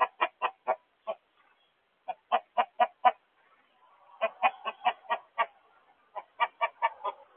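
Raven calling in quick runs of short calls, about five a second. There are four runs of five to seven calls each, with pauses of about a second between them.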